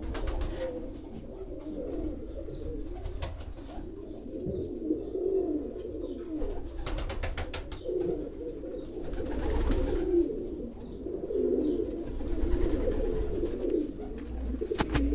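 Domestic pigeons cooing without a break, several birds' warbling coos overlapping, with a low rumble underneath.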